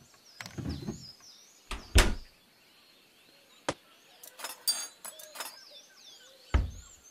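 Tableware being laid out on a dining table. There are a few dull knocks, the loudest about two seconds in and another near the end, and a quick run of ringing clinks of plates and cutlery in the middle. Birds chirp faintly throughout.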